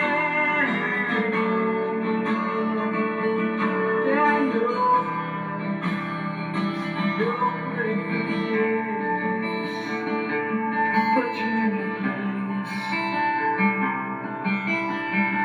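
Instrumental break in a song: guitar playing over the band's backing, with a few notes bending in pitch.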